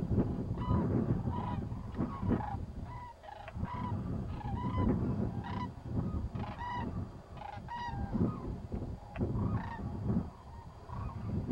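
Sandhill cranes calling in flight: a long run of short, repeated bugling calls that die away near the end, over a steady low rumble.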